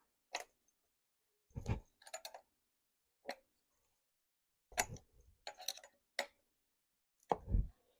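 Scattered clicks and knocks from bicycle parts and tools being handled during assembly, three of them heavier thuds, with quiet gaps between.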